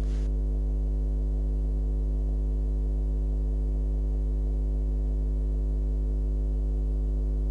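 Steady electrical mains hum: a low buzz with a stack of higher tones above it, and nothing else over it.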